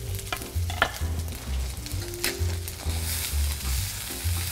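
Collard greens sizzling in hot oil in a pan as they wilt, with a couple of sharp knife strikes on a wooden cutting board, over background music with a steady bass beat.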